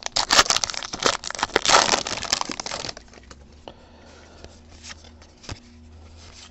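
Plastic wrapper of a baseball card pack being torn open and crinkled, a loud crackly rustle full of sharp clicks, for about three seconds. After that only a few faint clicks of the cards being thumbed through, over a low steady hum.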